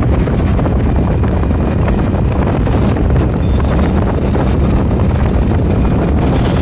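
Wind buffeting the microphone of a moving vehicle: a steady, loud, low rumble with no letup.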